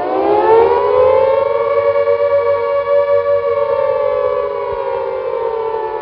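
Air-raid siren sounding one long wail: the pitch rises over the first second or so, holds steady, then sags slightly near the end.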